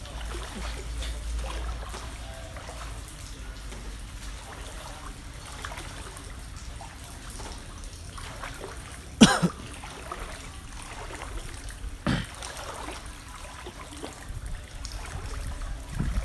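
Floodwater trickling and lapping in a steady low wash. A short, sharp, loud sound comes about nine seconds in, and a smaller one about three seconds later.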